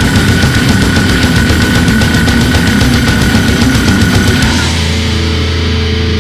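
Brutal death metal studio recording: full band with rapid drumming and heavily distorted guitars. About four and a half seconds in, the drums stop and a low distorted guitar chord rings on by itself.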